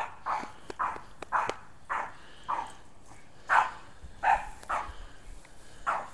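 A small dog barking repeatedly, about ten short sharp barks at roughly two a second with a brief pause partway through.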